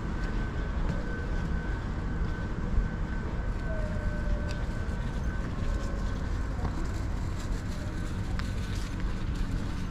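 Stationary Ohmi Railway 800 series electric train standing at the platform, its onboard equipment giving a steady low hum with a thin, steady high whine over it.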